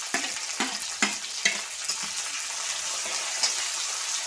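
Green chillies frying in hot oil in a black pan, a steady sizzle, with about four sharp knocks against the pan in the first second and a half and the sound of stirring after.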